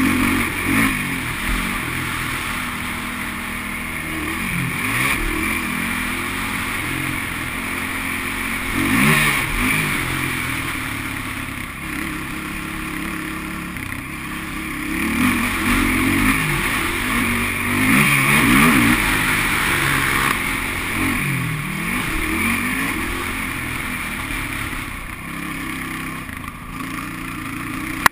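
Sport quad (ATV) engine heard from the rider's helmet, repeatedly revving up and dropping off as the throttle is rolled on and off around the track, with the rush of riding noise over it.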